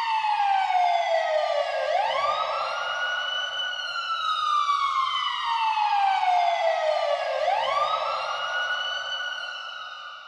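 Emergency vehicle siren wailing: the pitch sweeps up quickly and then falls slowly over about five seconds, twice, fading out near the end.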